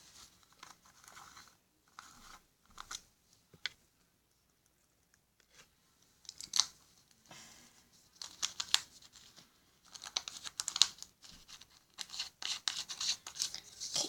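Crinkly, scratchy handling noise from slime-making supplies being picked up and worked by hand: rustling plastic and packaging with sharp clicks, in short bursts. It is quiet for a couple of seconds in the middle and gets busier near the end.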